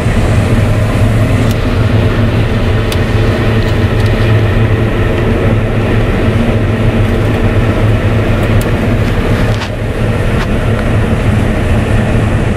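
Claas Lexion 770 combine harvester running steadily under load while cutting grain, a constant droning hum of engine and threshing machinery heard inside the cab, with a few light ticks.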